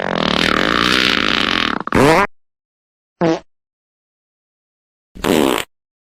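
Fart sound effects: one long fart of about two seconds, then three short farts, separated by dead silence.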